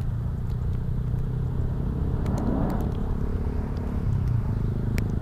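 Steady low hum of a motor engine running, with a brief swell of noise about halfway through and a few light clicks.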